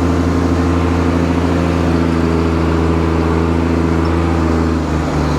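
Tractor's diesel engine running steadily at a constant speed, with a slight dip in pitch near the end.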